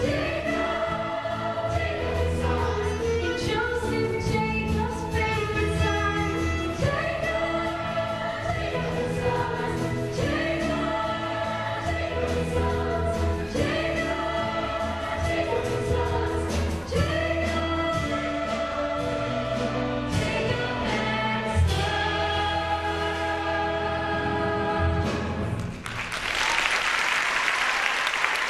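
Large stage chorus of mixed voices singing a musical number over instrumental accompaniment. Near the end the singing stops on the final note and the audience breaks into applause.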